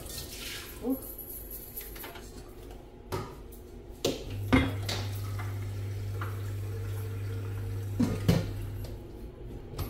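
Stainless-steel pot, its lid and a ceramic pudding dish clinking and knocking as the dish is lifted out of its water bath and set down on the gas hob's grate, with a little water dripping. The knocks come separately every second or so, and a steady low hum runs from about four to nine seconds in.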